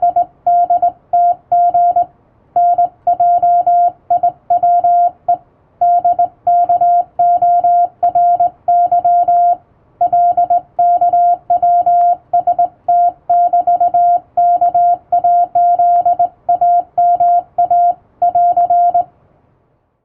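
Morse code sent by hand on a telegraph key: a single steady beep tone keyed into dots and dashes, spelling out European-alphabet telegram practice text. The sending stops about a second before the end.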